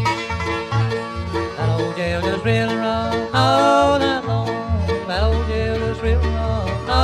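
Bluegrass band playing: banjo, guitar, fiddle and upright bass, with the bass alternating between notes on a steady beat.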